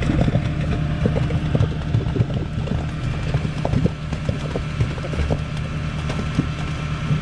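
Concrete boom pump working: a steady engine hum with many irregular knocks and rattles as concrete is pushed through the end hose into a pier hole.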